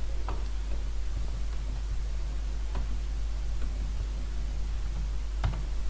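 A steady low hum with a few faint, scattered clicks of a computer keyboard and mouse.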